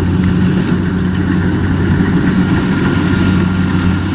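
Kubota DC-60 combine harvester's diesel engine running steadily as the machine cuts rice: a constant low hum with a faint steady whine above it.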